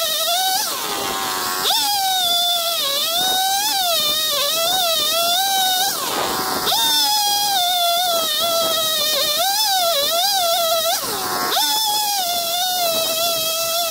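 Two-stroke gasoline chainsaw at high revs cutting through a log stump: a steady, high whine that wavers in pitch. Three times, roughly every five seconds, the pitch sags for about a second as the chain bites into the wood, then springs back.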